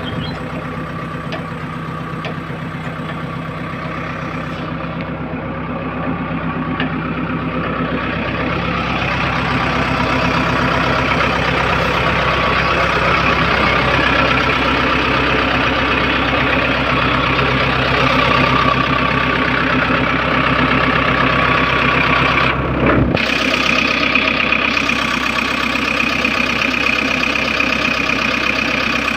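JCB 3DX backhoe loader's diesel engine running, its note rising and getting louder over several seconds. Near the end the deep rumble drops off suddenly and a higher steady whine comes in.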